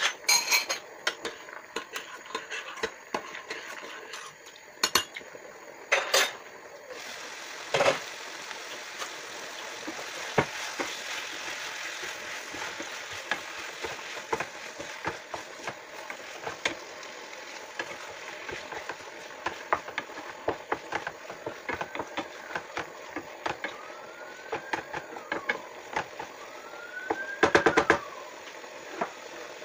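Chicken and red onion sizzling in a frying pan on a gas hob while being stirred with a wooden spatula, with small scraping clicks throughout. Sharp clanks of the glass pan lid and utensils come in the first seconds and again about six to eight seconds in, and a quick run of spatula knocks against the pan comes near the end.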